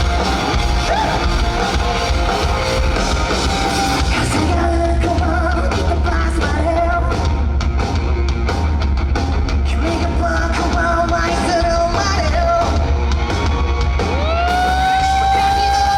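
Live rock band playing with a singer. Near the end a long note slides up and holds.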